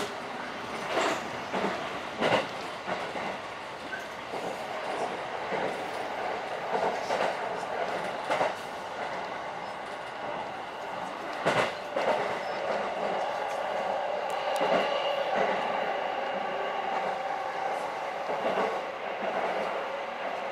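Electric commuter train running, heard from inside the passenger car: a steady running rumble with a few sharp clacks.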